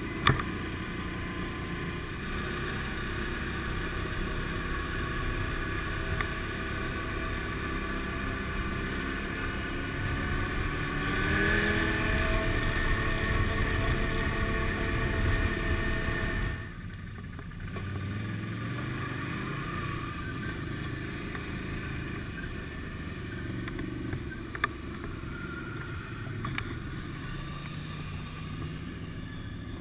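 Motorcycle engine heard from the bike itself while riding slowly, with a steady rush of noise. About eleven seconds in it is throttled up, its pitch rising, and holds until about sixteen seconds. Then the throttle is shut and it drops suddenly to a low, quiet running as the bike slows to a stop. Two short sharp clicks, one near the start and one later.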